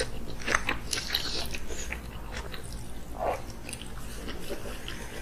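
Close-miked chewing and wet mouth smacks as mouthfuls of cheesy corn are eaten, with scattered short clicks.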